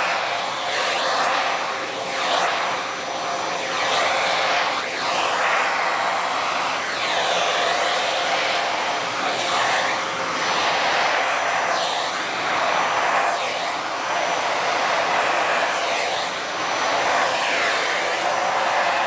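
Vacuum cleaner running continuously with a steady whine. The tone of its airflow shifts and swells in a repeating pattern about every two seconds.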